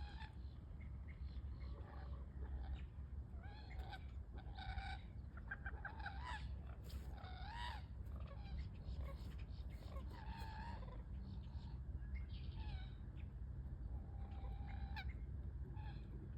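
A group of birds calling over one another in short squawking, clucking calls at different pitches, with a steady low rumble underneath.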